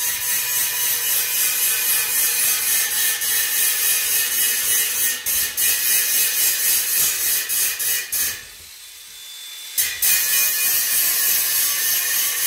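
DeWalt angle grinder cutting a round hole in a stainless steel sheet: a loud, steady, high-pitched grinding. About eight seconds in it drops away for a second and a half, then resumes.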